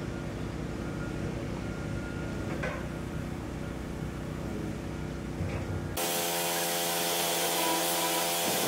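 Power tools running: a low steady machine hum for about six seconds, then a sudden cut to a louder hissing tool with a steady whine.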